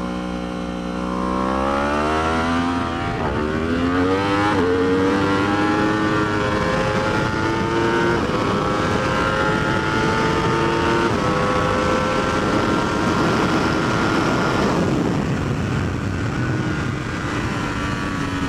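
Yamaha R1's crossplane inline-four accelerating hard under full throttle, its note climbing and broken by quick upshifts, the first two about 3 and 4.5 seconds in. About 15 seconds in the throttle closes for braking and the engine note falls. Wind rush runs under it throughout.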